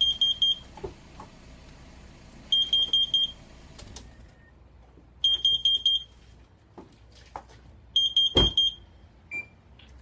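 MEIYE wall-mounted carbon monoxide and smoke alarm sounding its alarm: short bursts of about four quick, high-pitched beeps, repeating about every two and a half seconds. It has been set off by carbon monoxide from a running car's exhaust, at 342 ppm on its display. About eight seconds in, a car door shuts with a thump.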